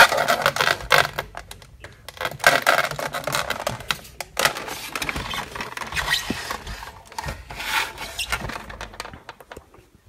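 A power cable plug is pushed into the socket on the back of a Dell LED monitor with a sharp click. Irregular scraping, rubbing and knocking of the plastic housing follow as the monitor is handled and turned around, dying away near the end.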